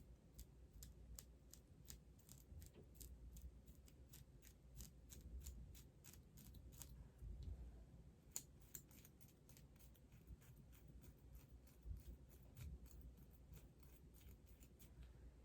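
Faint, quick clicking of tweezers, about three clicks a second, as hairs are plucked from a wig's lace closure.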